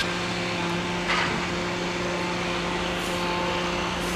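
An engine or motor running steadily at a constant pitch, an even hum with no revving.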